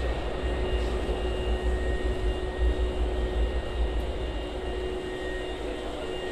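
Hankyu electric train rumbling in an underground station, loudest in the middle, over a steady hum.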